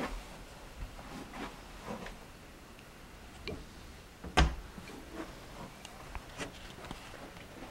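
Faint, irregular knocks and clicks, with one louder knock about four and a half seconds in.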